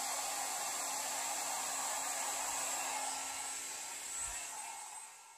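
Handheld hair dryer running, blowing wet acrylic pour paint across a canvas: a steady rush of air with a low motor hum and a high whine. It fades over the last two seconds or so.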